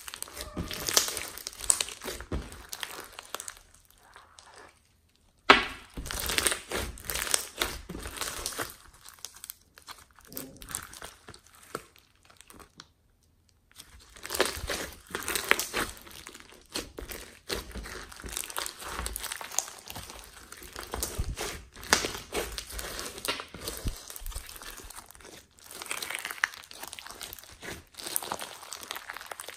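Hands squeezing and kneading clear slime full of foam beads: dense, irregular crackling and popping as the beads crunch and the slime stretches. It stops briefly twice, and a sharp crack comes right after the first stop.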